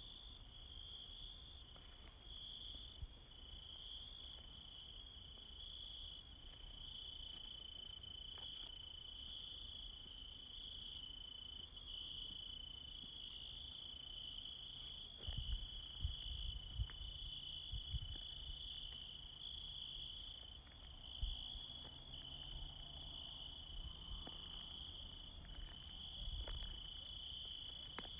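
Insects chirring in a steady, high-pitched chorus, with a few low rumbles on the microphone about halfway through.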